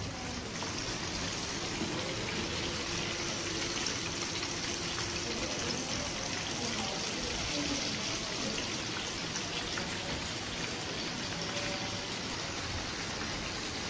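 Breaded chicken frying in hot oil, giving a steady, even sizzle.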